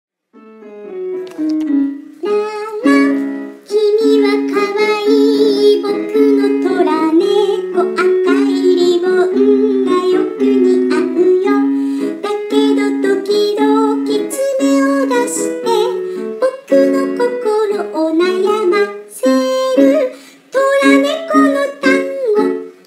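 Electronic keyboard playing a tune: a melody over an evenly repeated low note.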